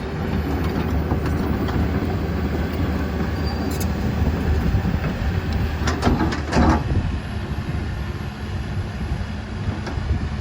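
Komatsu PC160LC hydraulic track excavator travelling in high travel speed: diesel engine running steadily under load, with the steel tracks clanking and a few sharp clanks about six seconds in.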